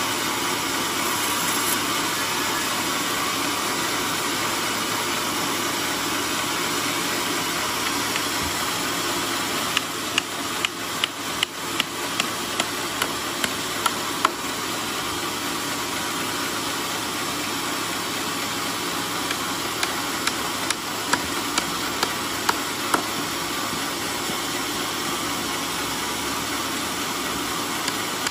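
Hand hammer driving a nail into the end grain of a mahogany block: a run of about nine quick blows, roughly two a second, starting about ten seconds in, and a second run of about seven blows around twenty seconds in. Under it the sawmill's engine runs steadily.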